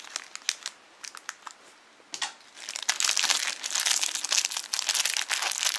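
Clear plastic wrapper crinkling in the hands as a small toy sealed in a plastic bag is handled and opened: a few scattered crackles at first, then steady close-up crinkling from about halfway.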